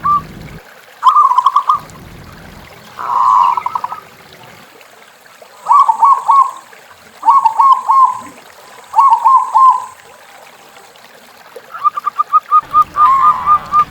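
Zebra dove (perkutut) cooing. Short phrases of quick rolling coo notes come one after another, then near the end a fast run of short, evenly repeated notes.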